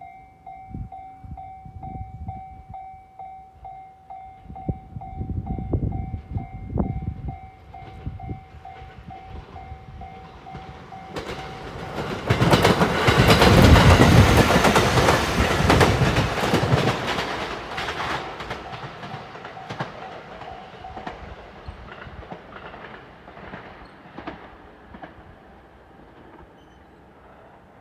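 Japanese level-crossing bell ringing in a fast steady ding-ding. About twelve seconds in, a JR Marine Liner electric train passes close by, its wheels clattering rapidly over the rail joints. The bell goes on under the train and stops as the train's noise fades away.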